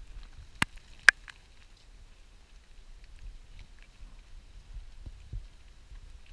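Someone pushing on foot through wet woodland undergrowth: low rustling and soft knocks of branches and grass against clothing, with two sharp snaps, like twigs breaking, about half a second apart in the first second or so.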